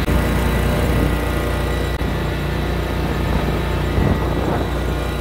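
Engine running steadily as the vehicle carrying the phone moves along, a continuous low drone with no breaks.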